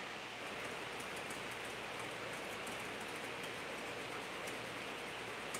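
A steady hiss, with faint light clicks of a whisk stirring in a small metal saucepan of gravy.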